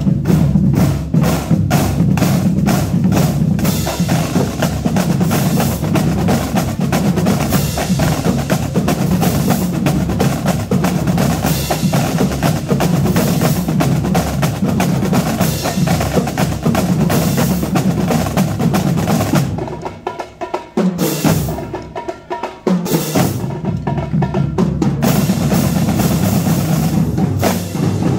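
Marching drum line playing a cadence on snare, tenor and bass drums, with dense, regular hits. About twenty seconds in, the full line drops back to sparser, quieter hits for several seconds, then the whole line comes back in.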